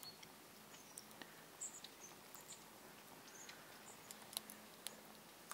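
Faint crackling of a wood cooking fire: scattered, irregular sharp clicks and pops, with a few brief high squeaks.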